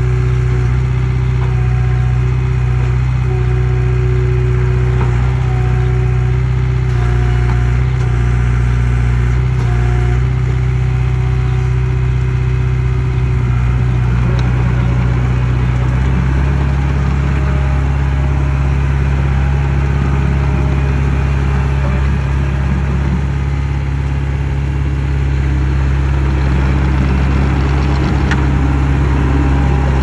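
Komatsu D20P-7 crawler dozer's diesel engine running steadily as the machine drives across gravel. The engine note changes about halfway through, as the dozer turns and travels on.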